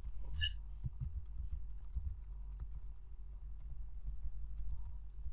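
Typing on a computer keyboard: scattered light key clicks.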